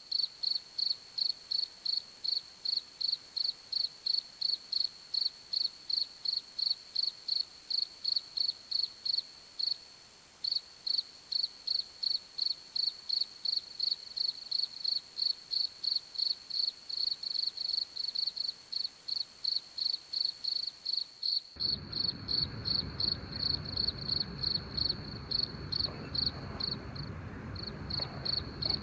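A cricket chirping in a steady, high-pitched rhythm of about three chirps a second, pausing briefly twice. About two-thirds of the way through, a low background hiss comes in suddenly under it.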